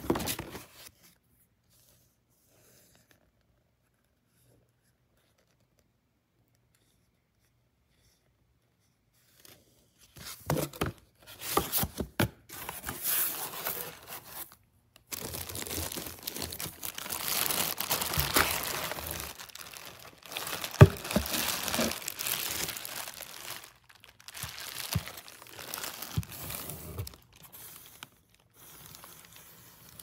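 A brief rustle, then near silence for several seconds. From about ten seconds in, clear plastic packaging bags crinkle and rustle as they are pulled about inside a cardboard box, with scattered sharp clicks, the loudest a little past the middle.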